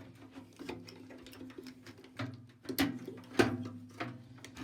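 Small clicks and knocks of wiring and parts being worked loose from inside a dismantled microwave, with two sharper knocks a little past halfway, over a steady low hum.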